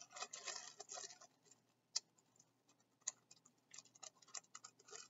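Faint clicking and rustling of small toys and packaging being handled, with a sharp click about two seconds in and another about a second later.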